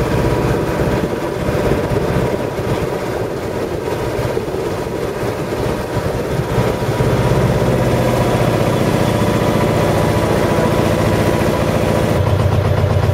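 A boat's engine running steadily, heard from on board, a low rhythmic hum that grows louder about seven seconds in.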